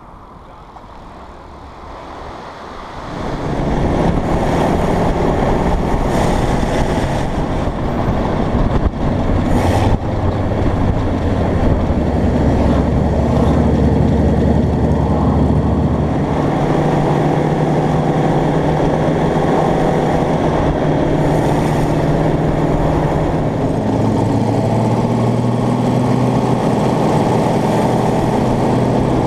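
An open-wheeled hot rod's engine with open velocity stacks on its carburetors runs loudly at road speed, cutting in about three seconds in after a quieter start. Its note steps up and down in pitch a few times as the speed changes.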